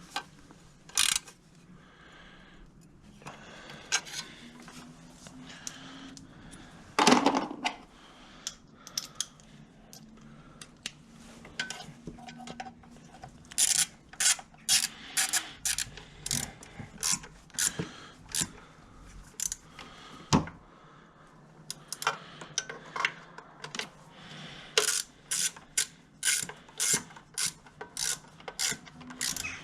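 Socket ratchet on a long extension clicking in quick runs as it turns the ignition coil's mounting screws, with a few single knocks of metal tools.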